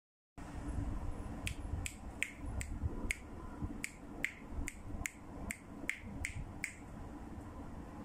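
A run of about fourteen sharp, evenly spaced clicks, two to three a second, that stop a little before the end, over a low room rumble.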